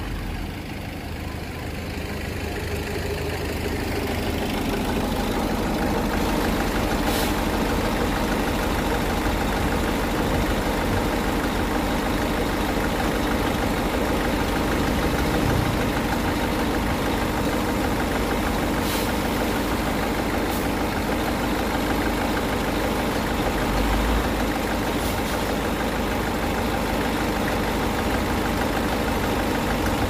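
Heavy diesel engine of earthmoving machinery (dump truck or bulldozer) running, growing louder over the first few seconds and then steady, with a few faint clicks.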